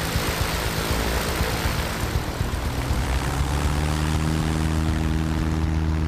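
Single-engine propeller light aircraft running as it rolls away along the runway. A close rush of propeller noise at the start gives way to a steady engine drone about three and a half seconds in.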